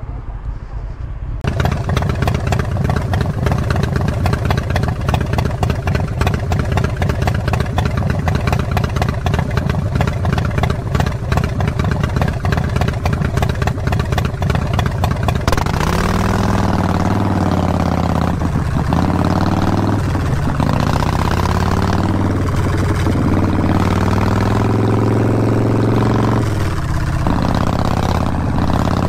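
Sport motorcycle's engine running while riding through traffic. About halfway through it changes abruptly to another motorcycle's engine running with a steadier, lower note.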